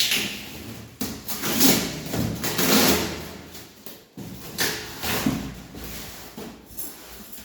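Rustling and scraping from objects being handled and unpacked, coming in several uneven swells with a few sharper knocks.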